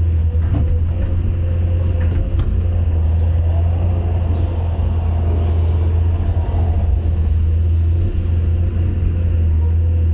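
Excavator's diesel engine running steadily with a strong low hum, and a few light clicks over it.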